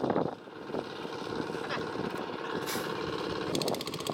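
A motor running steadily with an even drone, joined near the end by a rapid, evenly spaced rattle.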